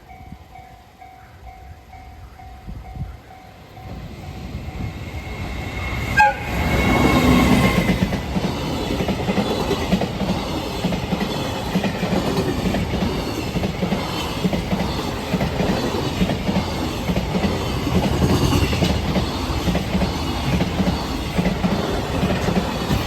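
Level-crossing alarm bell ringing in a repeating pattern as a train approaches, then about six seconds in the locomotive's horn sounds a courtesy blast lasting about two seconds. After it, the train passes with a steady rumble and rhythmic wheel clacks over the rail joints.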